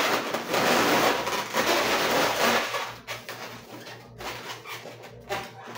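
Twisted latex modelling balloons rubbing against one another as they are pressed and shaped by hand, loudest for the first two and a half seconds, then quieter.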